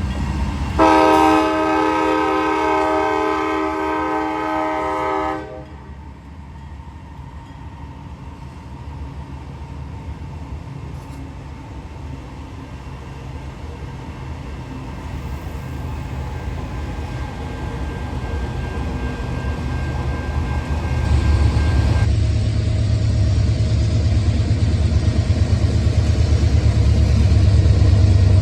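Freight train locomotive horn sounding one long blast of about four and a half seconds, then the low rumble of the approaching diesel locomotive, building steadily and getting much louder about 22 seconds in.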